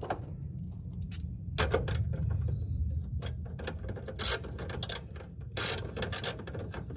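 Ratchet wrench clicking in short bursts of strokes as a bolt is turned, over a steady low rumble.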